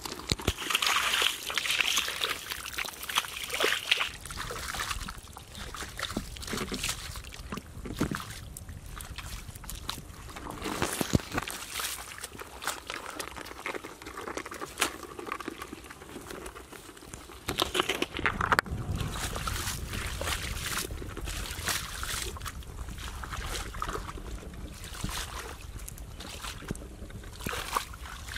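Rubber boots sloshing and splashing through shallow muddy water and soft mud, in irregular steps.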